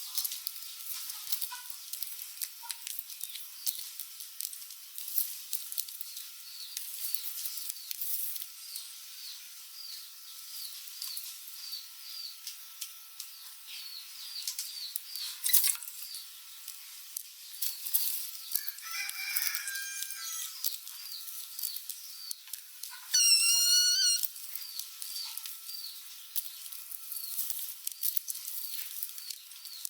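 Rats squeaking and scuffling: many short high squeaks and small clicks and scratches throughout, and one loud, wavering squeal lasting about a second, a little past two-thirds of the way in.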